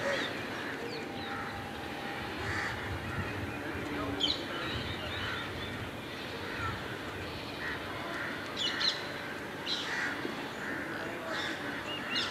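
Assorted birds calling at intervals over steady outdoor background noise, with crow caws among the calls. A quick run of short, evenly spaced chirps starts near the end.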